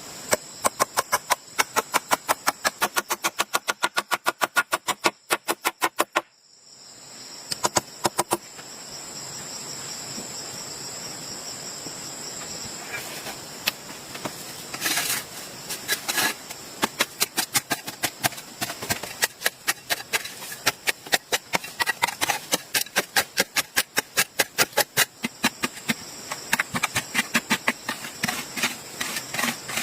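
Rapid, regular knocks of a tool striking bamboo, about four a second, breaking off briefly near six seconds and then resuming in uneven runs. A steady high insect buzz runs behind from about seven seconds on.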